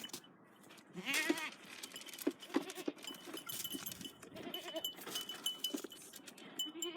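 Kiko goat bleating: one wavering, quavering bleat about a second in, then shorter bleats later, among scattered short clicks and crunches.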